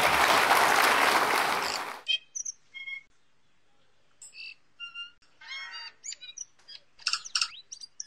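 Audience applause that cuts off abruptly about two seconds in. It is followed by a string of short birdsong notes and chirps: whistled notes at varied pitches, with a denser run of calls near the end.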